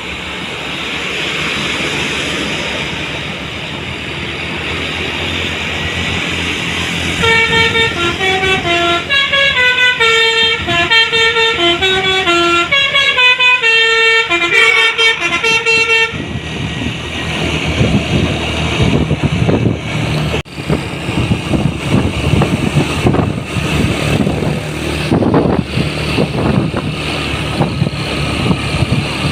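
Bus air horn of the telolet basuri type playing a melody of short stepped notes for about nine seconds, over the noise of heavy vehicles passing. Before and after the tune, only bus engine and road noise.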